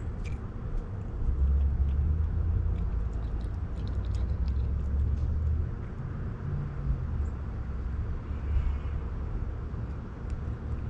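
A steady low rumble, with faint small wet clicks of a tortoiseshell cat licking and chewing raw fish pieces.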